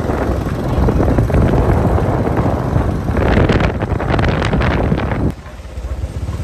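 Wind buffeting the microphone of a moving motorbike over the bike's engine running. The wind noise drops away suddenly about five seconds in, leaving the engine's low hum.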